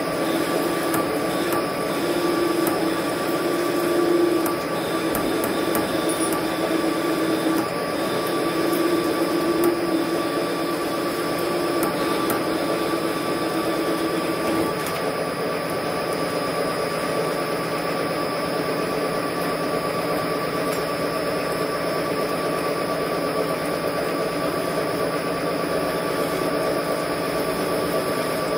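Metal lathe running with a steady motor and gear whine while a parting tool cuts off a short metal bush under coolant. A louder low tone from the cut comes and goes through the first half, then stops about halfway through.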